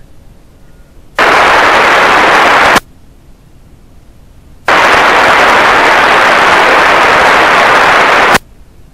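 Railroad radio scanner feed opening its squelch on two loud bursts of static hiss, the first about a second and a half long and the second nearly four seconds, each starting abruptly and cutting off with a click.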